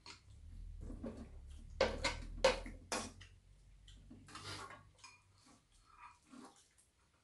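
Metal spoons scraping and clinking against a frying pan and a bowl while eating, with a cluster of sharper clinks about two to three seconds in and a brief scrape a little later.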